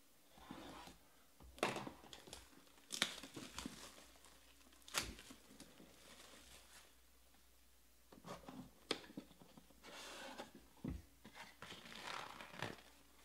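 Plastic shrink wrap being torn and peeled off a sealed trading-card box: irregular crinkling and crackling with sharp snaps, the loudest about two, three and five seconds in.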